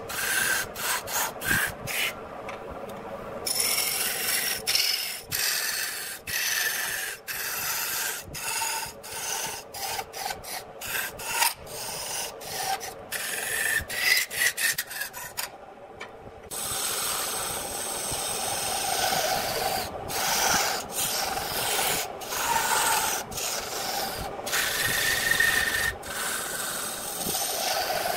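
A turning tool cutting a large wood blank spinning on a lathe: a rough, noisy scraping as shavings come off. It is broken by many brief dropouts and two longer gaps, about two seconds in and about fifteen seconds in.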